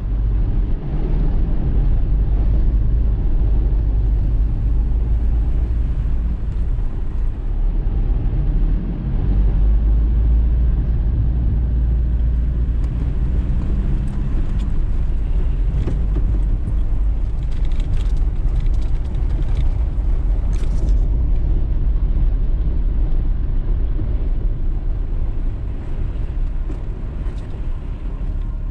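Jeep Cherokee XJ driving, heard from inside the cabin: a steady low rumble of engine and tyres, with the engine note drifting up and down for a few seconds about a third of the way in.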